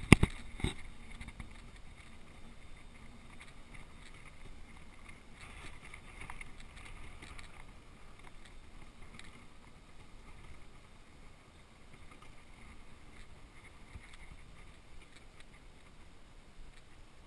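Wheelchair rolling over cracked asphalt: a steady low rumble of the wheels on the pavement, with two sharp knocks right at the start.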